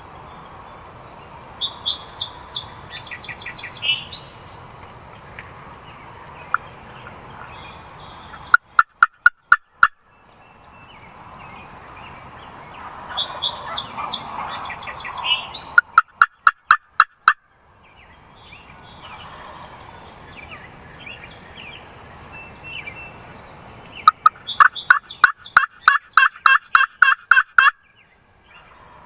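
Turkey calling in three runs of loud, clipped notes, about five a second: a short run about a third of the way in, another just past halfway, and a longer one near the end. Smaller birds chirp faintly in between.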